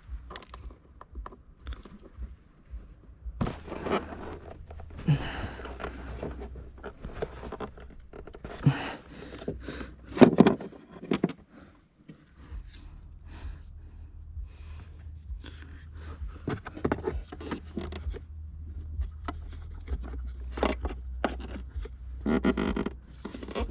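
Plastic car trim being worked by hand: irregular scraping and clicking of trim and clips being pried and fitted, with a few short breathy sounds of effort, over a steady low hum.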